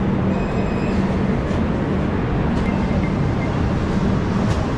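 Kaziranga Express passenger train rolling slowly out of the station, heard from a coach doorway: a steady rumble with a low hum and a few faint clicks.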